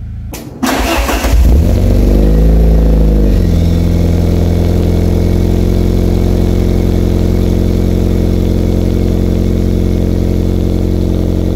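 Fiat Marea Turbo's five-cylinder engine through a near-straight exhaust (original mufflers removed, hollow catalytic converter, one large rear muffler): a rough burst, one quick rev that rises and falls, then a steady loud idle.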